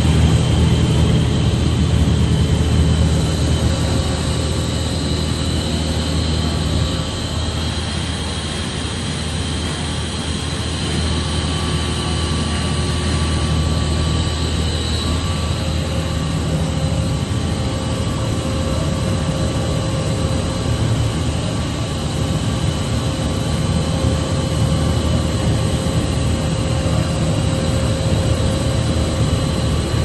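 Two-extruder cascade plastic pelletizing line running: a steady, loud machine drone with a strong low hum and a few steady high whining tones.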